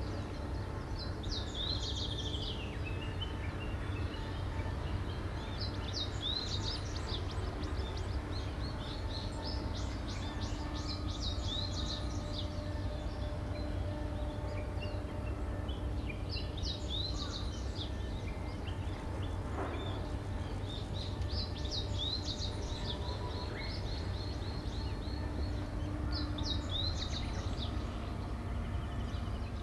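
Birds chirping in repeated bursts of quick, high notes over a steady low outdoor rumble, with a faint steady machine hum underneath.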